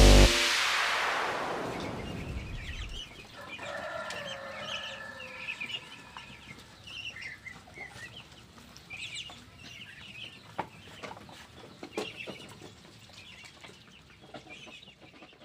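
Penned poultry calling faintly: scattered short high peeps and chirps, with one longer drawn-out call about four seconds in and a few sharp knocks later on. Before that, music cuts off and its tail fades away over the first two or three seconds.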